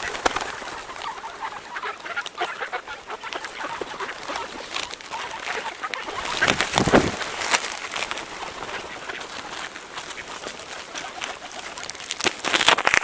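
A large flock of birds chattering and calling all together, a dense mass of overlapping chirps. There are louder rushing swells about seven seconds in and again near the end.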